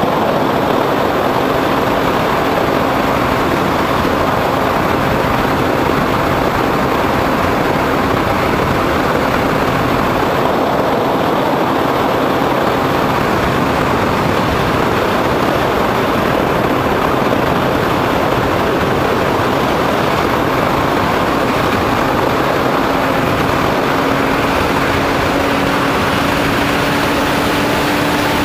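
Onboard sound of a foam RC plane in flight: a steady motor and propeller hum under heavy wind rush on the onboard camera's microphone. The motor tone rises slightly near the end.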